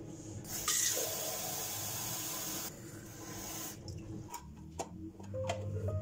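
Water running from a chrome kitchen mixer tap for about three seconds, then shut off, followed by a few light clicks and knocks.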